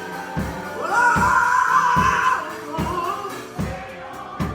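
Gospel music with a steady drum beat, about one beat every 0.8 seconds. About a second in, a long note slides up and is held for about a second and a half between sung lines.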